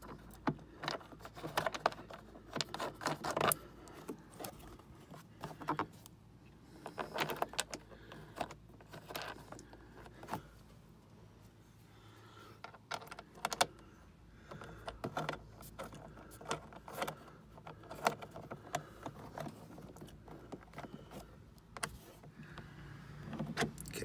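Irregular small clicks and light metallic jangling of hand tools and bolts being handled while a trim-panel bolt is lined up and threaded by hand.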